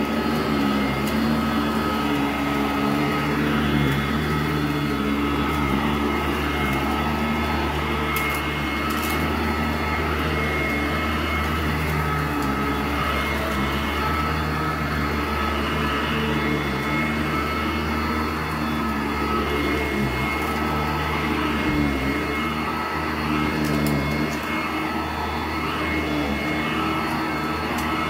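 Sanitaire SC886 Type E commercial upright vacuum running steadily while being pushed over carpet: a constant motor hum with a high whine. A few faint ticks come through, about a third of the way in and again near the end.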